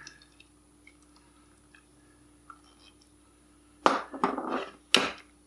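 Kitchen utensils knocking: a wire whisk and red measuring cup tapping against each other and the mixing bowl while sour cream is scraped out. Faint small ticks at first, then a quick cluster of sharp clicks about four seconds in and one sharper knock a second later.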